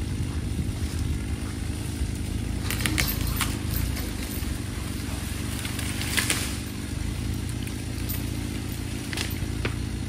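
A small cedar tree cracking and crashing down through branches, with snapping about three seconds in and the loudest crash about six seconds in, over a steady engine running throughout.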